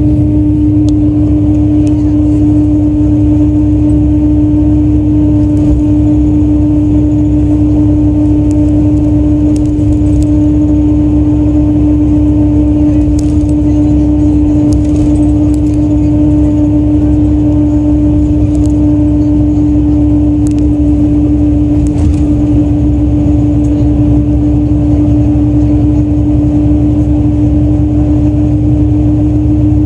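Hino S'elega coach's diesel engine idling while parked: a steady low rumble with a constant humming tone over it, unchanging throughout.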